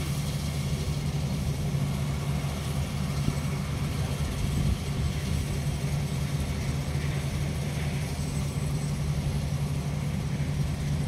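Claas Crop Tiger combine harvester's diesel engine running steadily as it harvests soybeans: a continuous low hum.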